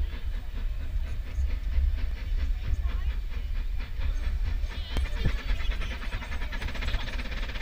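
Contractor's steam locomotive No 31 working hard up a gradient, its exhaust beating in a quick steady rhythm over a heavy low rumble, with more hiss of steam from about halfway through.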